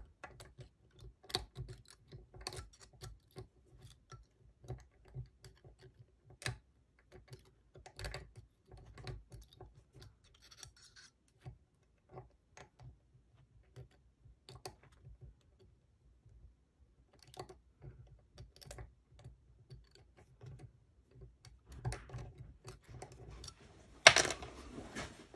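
Steel lock picks and a tension tool working inside the keyway of an Ultion 3-star euro cylinder: scattered small metallic clicks and scratches as the pins are raked and set, busier toward the end, with one louder sharp click near the end.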